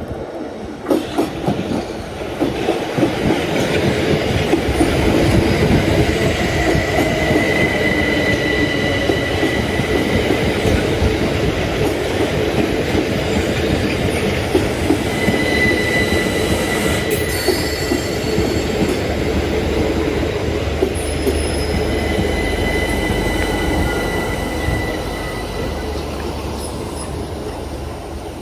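Southeastern electric multiple-unit train running past on the rails, building up over the first few seconds and easing off near the end, with a few sharp wheel clicks about a second in and a high wheel squeal that comes and goes.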